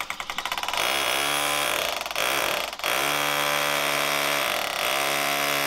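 Makita power drill boring into a porcelain toilet bowl: it starts in rapid pulses, then runs steadily at full speed, easing off briefly twice near two and three seconds in.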